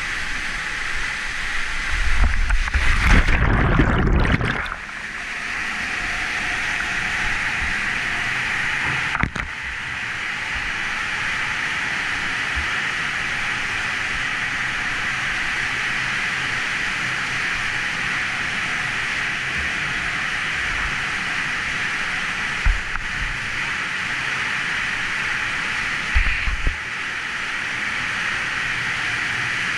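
Steady rush of a waterfall pouring into a pool in a narrow rock canyon. About two seconds in there is a much louder splashing rush of water lasting about two seconds, and later a couple of brief low thumps.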